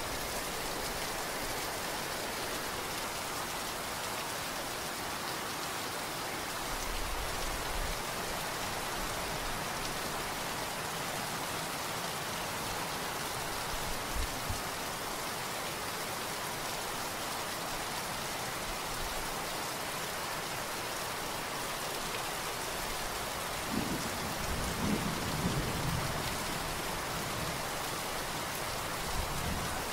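Steady rain, a dense even hiss. Low rumbles of distant thunder come through it several times, the loudest about five seconds before the end.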